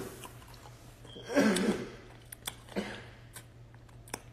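A man chewing a pickle with open-mouthed lip-smacking, scattered wet clicks and crunches, and a short grunt-like vocal sound about a second and a half in.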